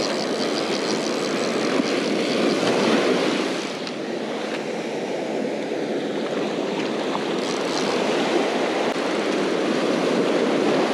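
Steady roar of ocean surf breaking and washing up the beach, dipping briefly about four seconds in.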